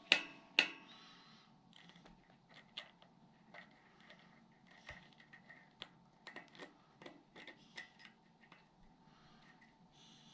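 Light metallic clicks and taps of a cassette spacer being slid onto a bicycle freehub body and lined up on its splines. Two sharper clicks come in the first second, then scattered small taps.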